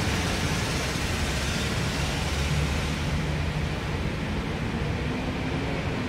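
Steady low background rumble with a hiss, even throughout and with no distinct events, like distant traffic or machinery.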